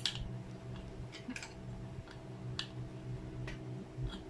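A handful of light, irregular metallic clicks as the collet nut of a Lotus LTPR550X palm router is turned by hand to clamp a bit in the collet, with the router switched off. A faint steady hum runs underneath.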